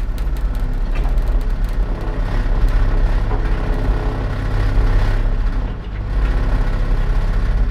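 Old, rusty elevator mechanism running: a steady low motor hum with a humming whine over it and metallic rattling and clicking, the clicks thickest in the first few seconds.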